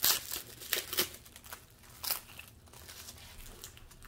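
Packaging crinkling and rustling in the hands as it is unwrapped, with a few sharp crackles in the first two seconds and fainter rustling after.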